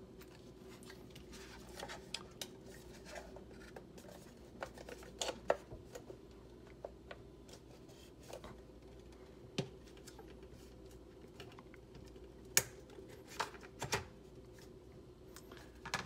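Scattered light clicks, taps and scrapes from a late 2018 Mac Mini being reassembled by hand: cable connectors pressed home and the logic board assembly slid and seated into the aluminium housing. A faint steady hum sits under them, and a few sharper clicks come in the second half.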